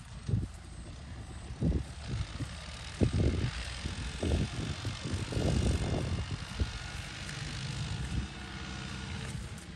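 New Holland 640 tractor's diesel engine running at a distance, working a loaded trolley of maize stalks that is stuck in soft wet ground, with irregular low rumbling gusts over a steady hiss.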